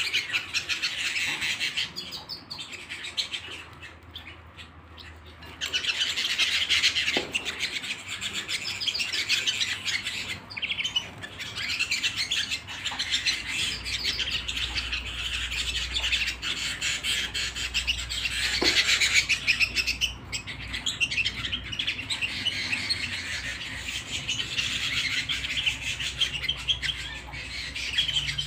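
Canary singing: long runs of fast trills and chirps, with a brief quieter lull about four seconds in.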